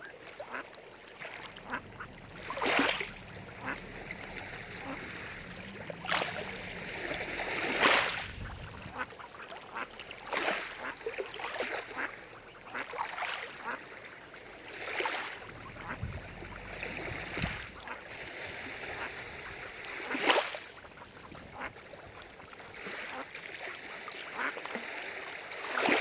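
Mallard ducks quacking, with loud calls every few seconds.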